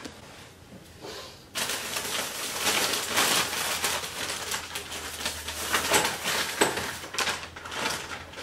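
Plastic shopping bags and snack packaging rustling and crinkling as items are pulled out of them, starting about a second and a half in.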